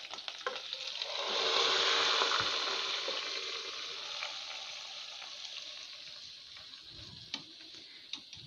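Hot oil tarka of fried onion, garlic, ginger and green chillies poured into a pot of beef paya curry. It hits the liquid with a sizzle that swells about a second in and then slowly dies away.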